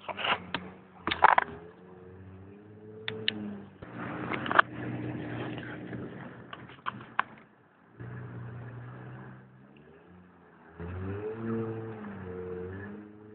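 Nissan Sentra SE-R Spec V's four-cylinder engine revving up and down in uneven surges, with sharp knocks and clatter in the first few seconds and a burst of hiss partway through.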